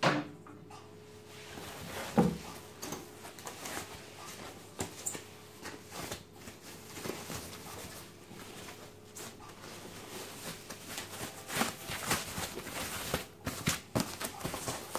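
Foam packaging sheets rustling and crinkling as they are pulled out of a cardboard box, with irregular handling clicks and knocks. There is a sharper knock about two seconds in, and the rustling grows busier near the end.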